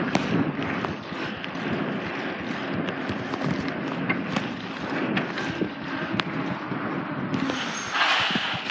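Wind rushing over the microphone while riding a bicycle, with scattered small clicks and rattles from the bike and a louder gust of rushing noise near the end.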